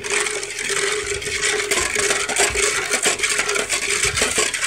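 Long steel spoon stirring sugar into a milky almond drink in an aluminium pot, scraping and clinking rapidly against the pot's sides and bottom.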